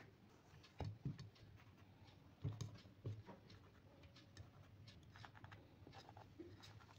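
Near silence: room tone with a few faint soft knocks about a second in and again around two and a half to three seconds in, and scattered light ticks.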